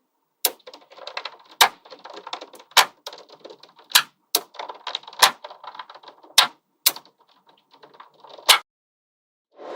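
Small magnetic balls clicking and rattling against each other as they are handled and built up, with about nine sharp, louder snaps at irregular intervals.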